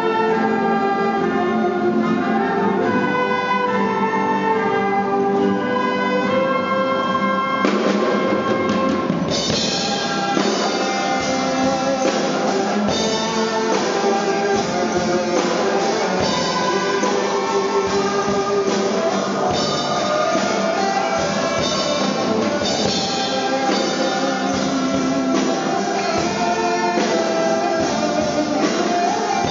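Large school orchestra playing live. Held notes at first; about eight seconds in, drums come in and a steady beat carries on from there.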